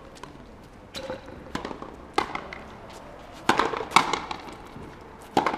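Frontenis rally: the rubber ball is struck by strung rackets and smacks off the concrete walls, giving about six sharp, irregular knocks, each with a short ring.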